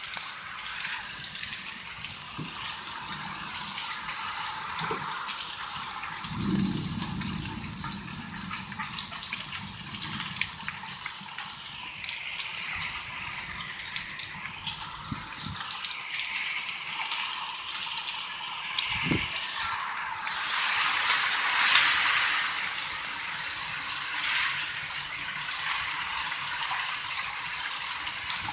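Heavy rain pouring down in a violent thunderstorm, a steady hiss that surges louder about twenty seconds in as a gust drives the downpour.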